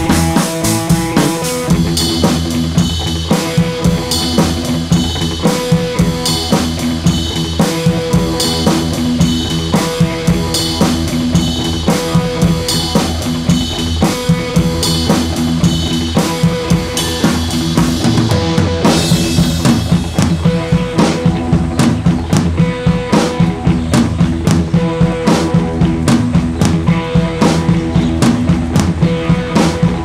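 Background music with a steady drum-kit beat over held notes.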